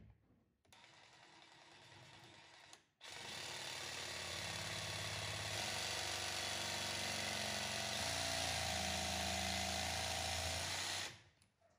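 DeWalt 20V cordless jigsaw running and cutting wood: it runs slowly for about two seconds, stops briefly, then runs at full speed for about eight seconds and stops near the end.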